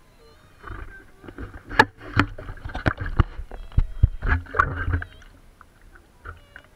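Shallow seawater splashing and sloshing right at the microphone as the camera is moved through the water's surface. Sharp knocks and bumps on the camera come from about two seconds in, and it settles after about five seconds.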